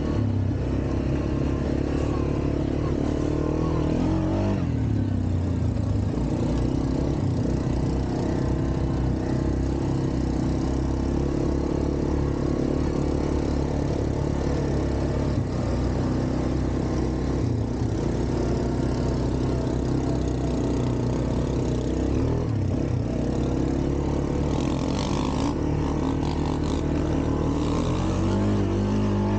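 ATV engine running while being ridden, its pitch rising and falling several times as the throttle opens and closes.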